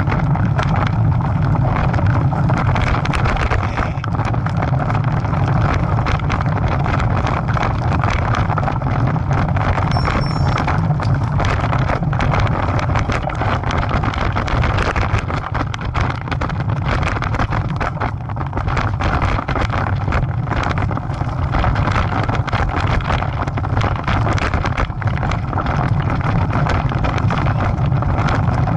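Wind rushing over the microphone of a camera riding along on a moving bicycle, with the rattle of tyres and frame rolling over a rough dirt trail, heard as many small irregular clicks and knocks.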